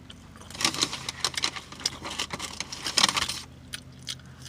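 Paper food wrapper crinkling and crackling as it is handled, a dense run of sharp crackles for about three seconds that stops short near the end.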